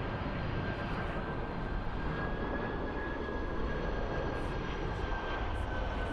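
Jet engines of an approaching Boeing 747-400 freighter: a steady engine noise with a thin whine that sinks slightly in pitch.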